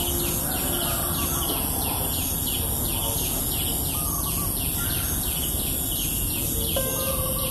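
Rural morning ambience: a steady high insect hiss and a run of short falling chirps, about three a second, over a low steady rumble. Near the end a steady tone of several pitches comes in and holds.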